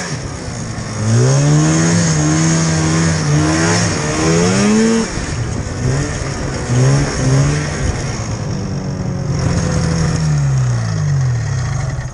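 Old Polaris snowmobile's two-stroke engine running under the rider's throttle, its pitch rising and falling again and again as it speeds up and eases off. The engine sound stops abruptly near the end.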